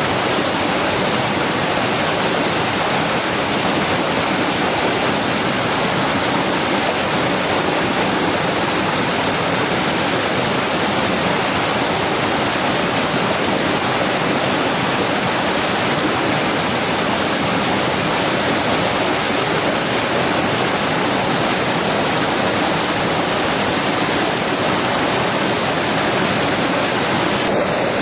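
Heavy rain falling steadily, a dense, even rushing hiss with no letup.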